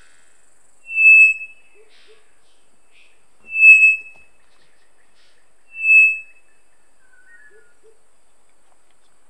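Male three-wattled bellbird calling: three loud, short notes about two and a half seconds apart, each a single steady high tone. A few faint, lower notes follow near the end.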